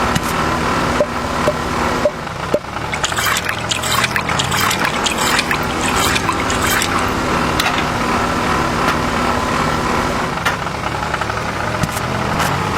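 A small motor running steadily, with wet crackling and trickling sounds over it that are busiest from about three to seven seconds in.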